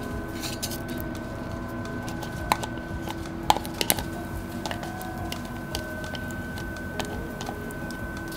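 Metal spoon clinking and scraping against a plastic cup while jam is scraped out, with a few sharp clicks between about two and a half and four seconds in, over a faint steady hum.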